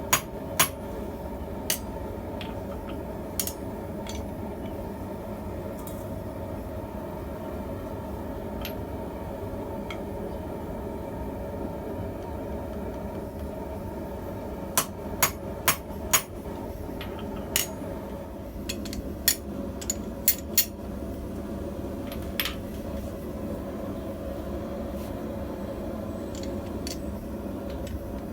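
Hammer blows ringing on steel at a blacksmith's anvil while forging tongs: a few single strikes early on, then a quicker run of about a dozen sharp strikes in the second half, over a steady low hum.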